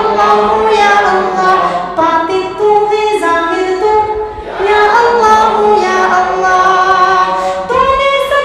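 A naat sung unaccompanied by a single voice, in long held notes that waver and turn between phrases.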